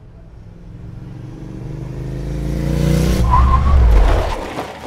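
Motorcycle engine approaching and growing steadily louder as its pitch rises, then a brief tire squeal and a noisy skid about three seconds in, fading away near the end.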